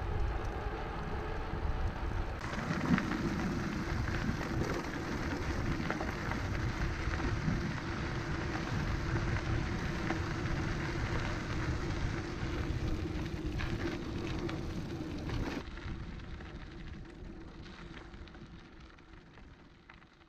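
Rolling mountain-bike tyres on a gravel track and asphalt road, with wind buffeting the camera's microphone. The sound changes abruptly twice and fades out over the last few seconds.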